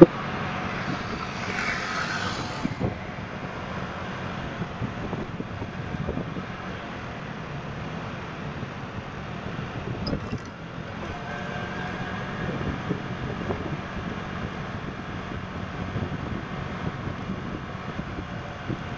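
SYM Jet SR scooter's engine running under way with road and wind noise, picked up by a dash camera on the scooter's front shield, with city traffic around it. A brief hiss rises and fades about two seconds in.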